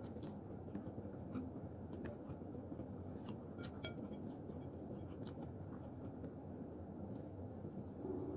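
Faint eating sounds of a person picking at fried fish with her fingers and chewing: scattered small clicks and smacks at irregular moments, over a steady low room hum.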